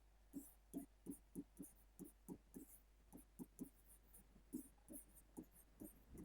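Faint writing sounds: a run of light, irregular taps, about three a second.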